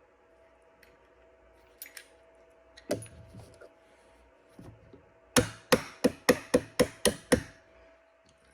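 A pin punch tapped eight times in quick succession, about four taps a second, driving a trigger pin into a Glock 26 pistol frame, after a single knock about three seconds in.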